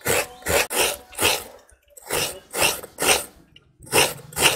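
Half a coconut scraped against the serrated coconut scraper of a bonti, a run of short rasping strokes about two a second, with two brief pauses.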